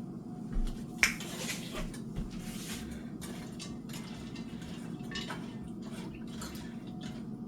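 Food cooking on the stove: scattered light bubbling and clinks over a steady low hum.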